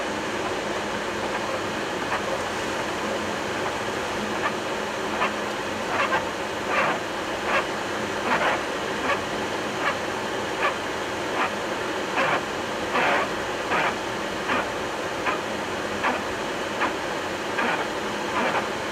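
Boeing 737-800 windshield wiper running on low speed over steady cockpit noise, sweeping with a regular swish about every 0.8 seconds that starts about four seconds in.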